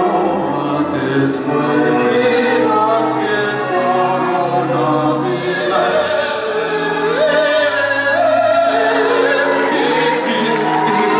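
A man and a woman singing a duet into handheld microphones over instrumental music.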